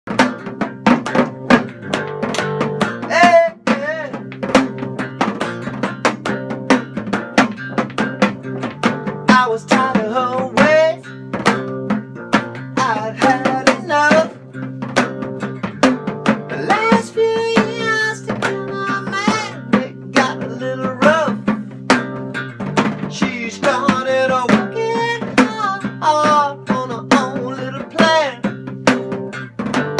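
A two-piece band playing an instrumental passage: a plucked string instrument over steady drum hits, with a wavering, bending melody line on top.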